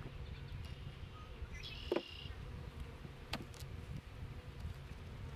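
Steady buzzing of thousands of Russian honeybees from a package, with a few light knocks about two and three seconds in.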